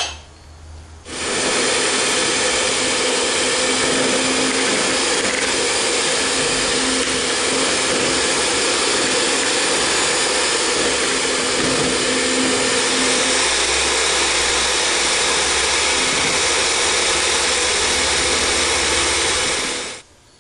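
Electric stand mixer's twin beaters running at a steady speed, creaming butter in a plastic bowl. A brief click comes first, the motor starts about a second in, and it stops just before the end.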